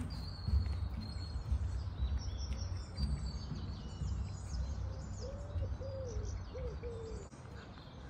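Wild birds singing, with many short high chirps and a few low arched calls about five seconds in, over a steady low rumble.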